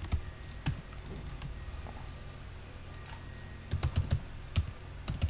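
Computer keyboard typing: irregular keystroke clicks, with a quick run of keys about four seconds in.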